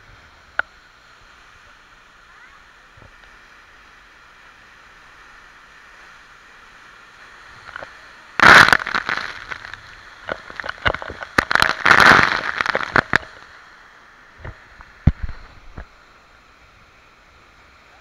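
Waterfall spray pelting the camera: a faint steady rush of falling water, broken about halfway through by several seconds of loud crackling bursts and pops as the spray hits the camera. A few shorter pops follow a little later.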